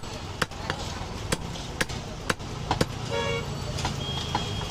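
Heavy butcher's cleaver chopping goat meat on a wooden log chopping block, sharp strikes about two a second that thin out after about three seconds. Passing traffic hums underneath, with a short pitched beep about three seconds in.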